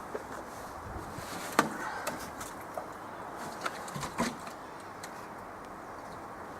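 Knocks and clatters from handling a bucket and tray while clearing out a chicken coop: a few sharp knocks, the loudest about one and a half seconds in and another about four seconds in, over a steady low hiss.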